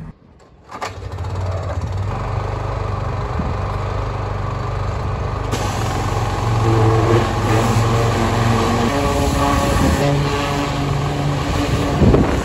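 Pressure washer running: a steady motor hum, with the hiss of the spray on the tractor louder from about halfway in. A loud knock near the end.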